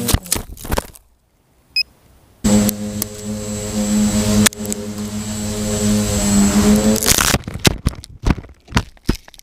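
Quadcopter's four Multistar 2213-980 brushless motors and Gemfan 9047 propellers, heard from the camera on the frame. It hits the ground with a few sharp knocks and goes quiet for about a second and a half. The motors then spin back up to a steady whine for a few seconds, and after about seven seconds it crashes again, tumbling with a string of sharp knocks as the props strike the grass.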